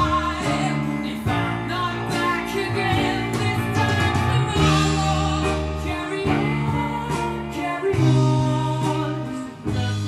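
Pop song with a singer and guitar, played through loudspeakers driven by a home-built Honey Badger Class AB power amplifier under test.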